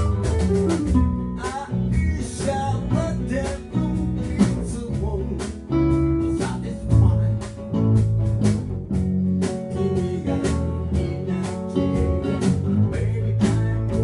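A small band playing a blues-rock tune on guitars: acoustic and hollow-body electric guitars strumming and picking chords and lead lines in a steady rhythm.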